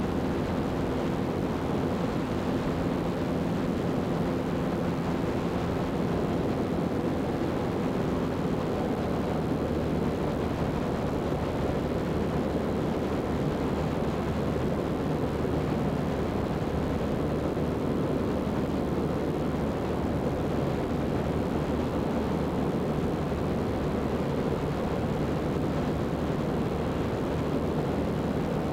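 Zenith CH 750 Cruzer light aircraft in level flight: steady drone of its engine and propeller. The engine's pitched hum grows less distinct after about nine seconds.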